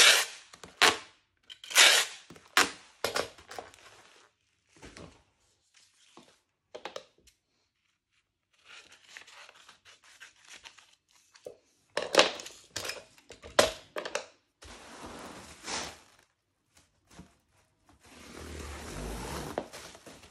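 Household items and their packaging being handled: a run of sharp thunks and knocks, then stretches of tearing and crinkling, with a second cluster of knocks in the middle.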